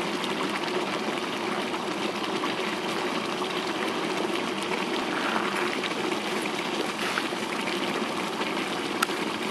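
Boiling geothermal hot pool, water bubbling and churning with a steady rushing sound.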